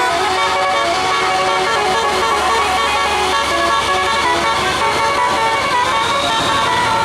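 Bus telolet musical air horn of the Basuri type playing a melody, a fast run of stepping horn notes with no break.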